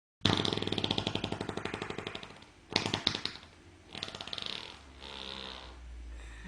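A long, rapid rattling fart of about two and a half seconds, followed by a short sharp burst of a few pops and then two softer fluttering farts near the end.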